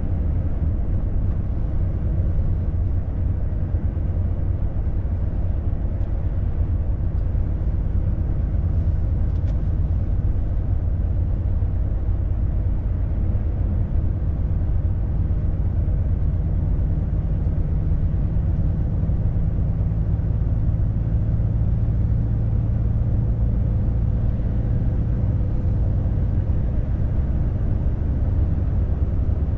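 Volvo FH truck's diesel engine and tyre-on-road noise heard from inside the cab while driving along at speed: a steady low drone, with the engine's low hum growing a little stronger partway through.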